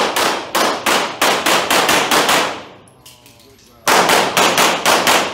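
Pistol fired in rapid strings at an indoor range, each shot echoing off the walls. A quick run of about eight shots, roughly three a second, is followed by a pause of about a second and a half, then another rapid string of shots near the end.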